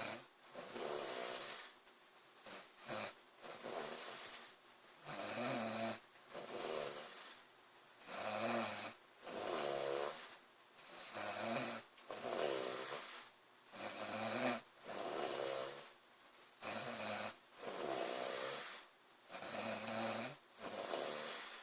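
A girl snoring loudly in a steady rhythm, a rattling snore on the breaths, repeating about every two seconds.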